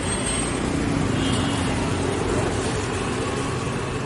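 Steady outdoor traffic noise: a low, even rumble of road vehicles.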